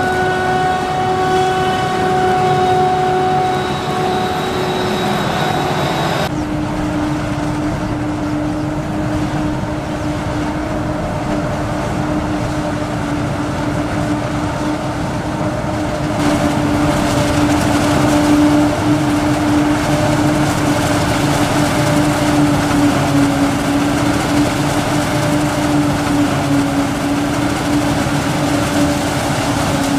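Claas self-propelled forage harvester and the tractor running alongside it, working through standing maize, with a steady mechanical hum. The hum steps down in pitch about six seconds in and grows a little louder and noisier about sixteen seconds in.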